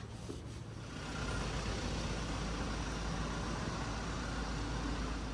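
A motor vehicle running on the street, a low steady rumble that comes up about a second in and holds.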